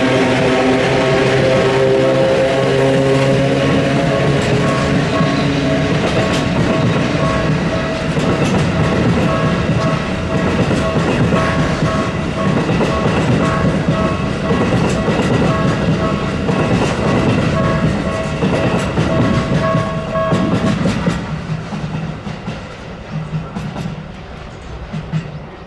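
Electronic level-crossing bell of the Tokyu type ringing in a steady repeating beep while a freight train rolls over the crossing with wheels clattering over the rail joints. About 21 seconds in the bell stops and the train noise fades away.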